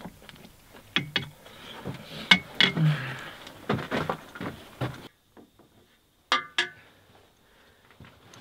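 Chopsticks clicking and knocking against a bowl during eating, with small mouth sounds. About five seconds in it drops to quiet, then two sharp, ringing clinks of dishware.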